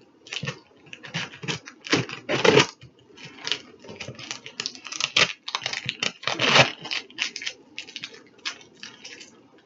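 A pocket knife slicing through packing tape and cardboard on a shipping box: a run of short, irregular scraping strokes.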